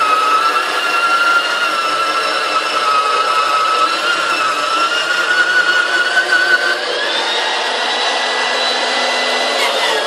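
Shetland floor polisher's electric motor and rotating brush running on carpet, a steady whine whose pitch drifts slowly upward and then jumps to a higher, steadier note about seven seconds in.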